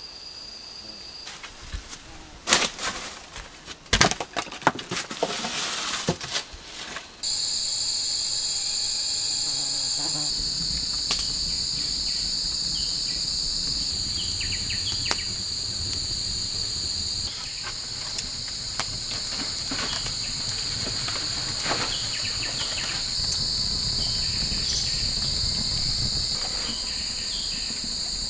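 Sharp knocks and rustling for the first several seconds, then an insect chorus at night cuts in abruptly: a steady, shrill, two-toned trilling that carries on, with occasional faint clicks.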